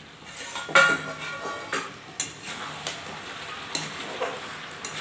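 A steel lid is lifted off a kadai of chicken curry and set down with a clank that rings briefly, then a metal spatula stirs and scrapes through the curry with a few clatters against the pan while the curry sizzles.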